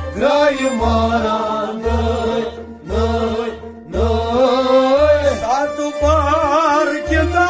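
Kashmiri Sufi song (sufiana kalam) sung by a man over a low drum beat about once a second, with a held accompanying note. Near the end the voice wavers in a quick ornamented vibrato.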